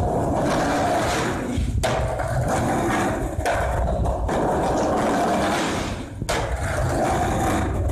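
Skateboard wheels rolling over stone paving tiles and up a concrete ramp, a steady rolling rumble broken by three brief drops.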